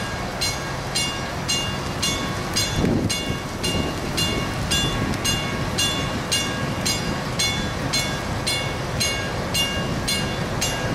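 Warning bell ringing steadily about twice a second, each stroke with a ringing high tone, over a continuous low rumble.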